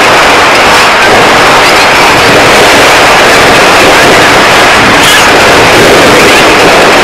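Fireworks display close up: a steady, very loud wash of bangs and crackle with no clear gaps between bursts, loud enough to overload the recording.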